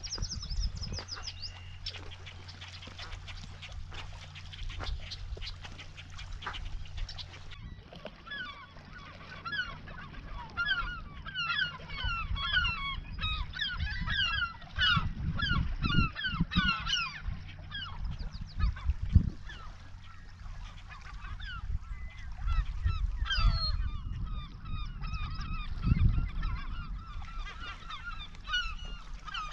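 A colony of gulls calling over the water, many short overlapping calls at once, beginning about seven seconds in and thickest in the middle and near the end, over a low wind rumble.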